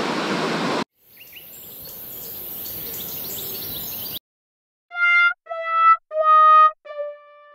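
A sad-trombone 'wah-wah-wah-waah' sound effect: three short notes stepping down, then a fourth held long, the comic signal of failure. Before it, an even rushing background cuts off and a fainter stretch of high hiss with a few bird chirps fades in and stops.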